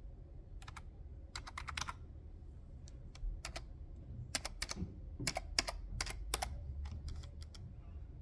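Typing on a laptop keyboard: sharp key clicks in short, irregular bursts with pauses between them.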